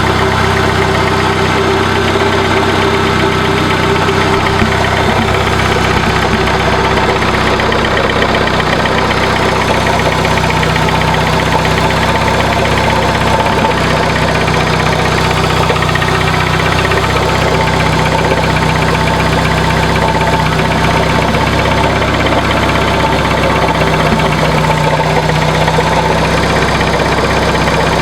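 1996 Dodge Neon SOHC four-cylinder engine idling steadily, with a nasty grinding, scraping noise from the alternator, whose bearings are worn out.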